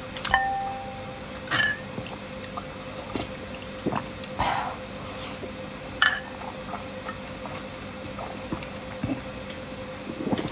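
A metal spoon clinks against a ceramic bowl a few times, each with a short ring, between wet sips and slurps of chili-oil broth from the spoon. A faint steady hum runs underneath.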